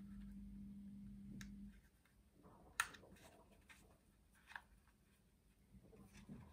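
Near silence, with faint rustles of card and a few small clicks from hands fitting a small fastener through punched holes in a card. The sharpest click comes just under three seconds in. A faint steady hum stops under two seconds in.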